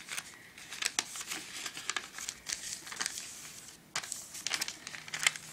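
A sheet of paper crinkling and crackling as it is folded and creased by hand, with irregular sharp crackles.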